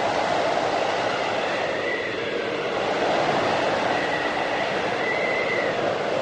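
Strong blizzard wind blowing steadily, with a faint high whistle that swells and fades several times.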